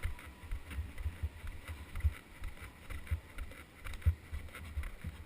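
Irregular low rumbling buffets on the microphone, typical of wind or handling noise, with scattered light clicks and knocks.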